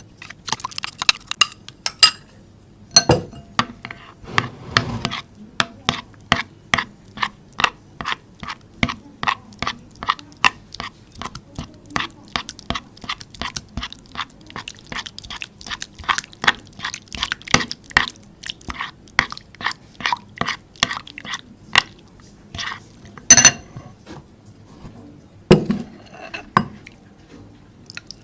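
Homemade slime being stirred and worked in a bowl, making a steady run of sticky, wet clicks and pops about two to three a second. There is one louder knock a little past the middle and a few duller thuds near the end.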